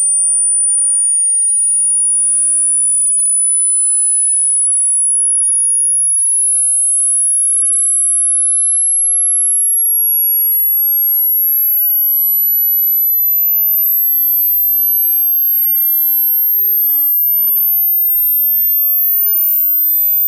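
Hearing-test tone: a single, very high-pitched pure tone at constant loudness, climbing in small steps about every second and a half toward the top of the hearing range.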